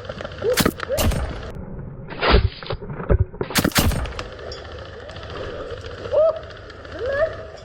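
Airsoft guns firing during a game: a handful of sharp cracks and clacks in the first four seconds, one a short rasping burst, then a quieter stretch with a few faint distant shouts near the end.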